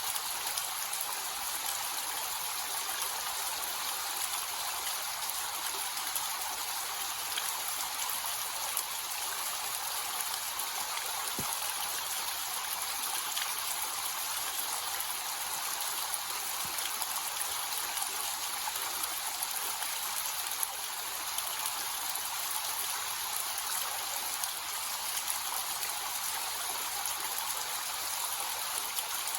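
Small waterfall with a light flow of water splashing and trickling steadily, a bright hiss of falling water without breaks.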